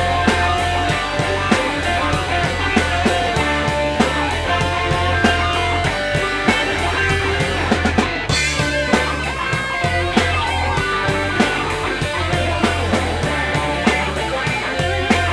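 Instrumental passage of a rock song: guitar and drum kit playing with a steady beat, with no singing.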